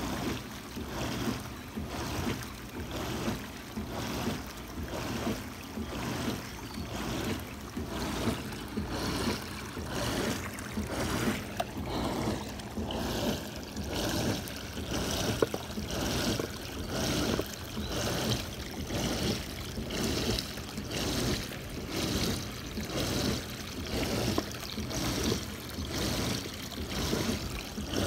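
Spa filtration pump surging between high and low speed about once a second, the jets pulsing and the tub water churning and splashing with each surge. The surging is a fault in the pump's operation.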